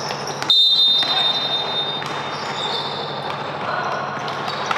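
Referee's whistle: one long, shrill, steady blast starting about half a second in and fading after a second or so, over the thud of a bouncing basketball on the court.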